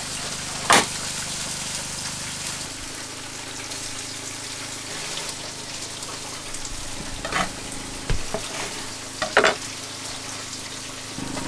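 Fish searing on a flat-top griddle, a steady sizzle over a low hum, with a few sharp knocks of utensils, the loudest about a second in.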